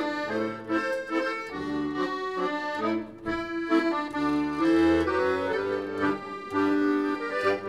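Piano accordion playing a tune, melody over rhythmic bass notes and chords, with a held chord beginning right at the end.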